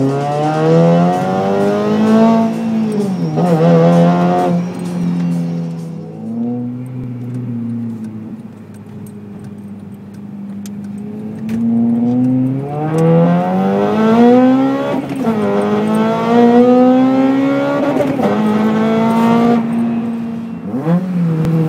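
Honda Civic Type R FN2's 2.0-litre four-cylinder VTEC engine, breathing through a Martelius exhaust and Tegiwa manifold, heard from inside the cabin as the car pulls hard through the gears. The engine note rises in pitch and drops at each gear change, eases off into a quieter steady stretch near the middle, then climbs through two more quick shifts in the second half.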